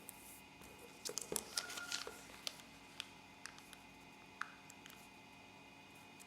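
Origami paper being handled and creased: a cluster of crisp crackles about a second in, then scattered single paper clicks.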